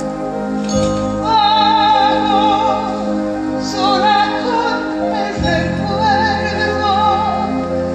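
Live musical-theatre ballad: a slow melody of long held notes with vibrato over sustained orchestral backing, the bass chord changing about five and a half seconds in.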